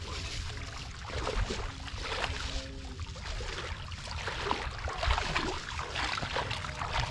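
Shallow muddy water splashing and sloshing as a person wades and scoops with a woven bamboo basket, then lifts it out with water pouring and dripping through the weave. The splashes come in irregular surges and grow louder about a second in.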